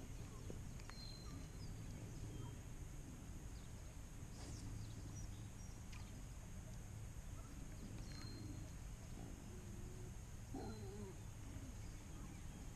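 Faint outdoor farm ambience: scattered short bird chirps and a few wavering farm-animal calls, the clearest near the end, over a low steady rumble.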